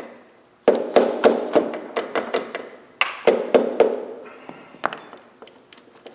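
Hammer blows on the spindle end of an Ammco 4000 brake lathe, each a sharp knock with a short ring. The blows come in two quick runs, about three a second, the first starting just under a second in and the second about three seconds in, followed by a few lighter hits.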